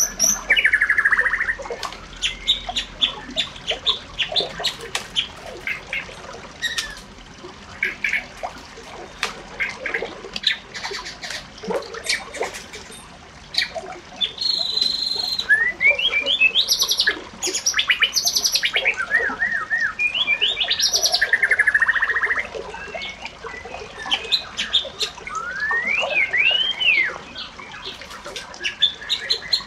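Birds calling and singing, many short chirps mixed with rapid trills and rising and falling whistled notes.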